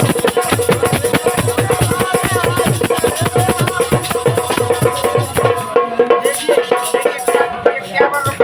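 Instrumental Rai folk music: a fast, steady drumbeat with rattling jingle percussion under a sustained melody line.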